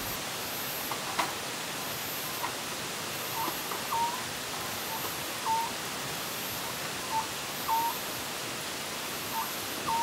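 Night forest ambience: a steady hiss of light rain or running water, with short chirping calls repeating every second or so and a faint, very high pulsing about once a second. A single light click about a second in.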